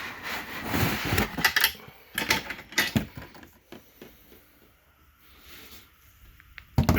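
Printer parts and packaging being handled and pulled out of the box: rubbing and rustling with sharp clicks and knocks, busiest in the first three seconds, then quieter, with a louder knock near the end.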